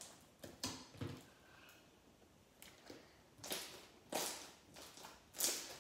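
Hands slapping and pressing homemade white glue-and-borax slime against a tabletop: a series of about six short, sharp slaps, the loudest near the end.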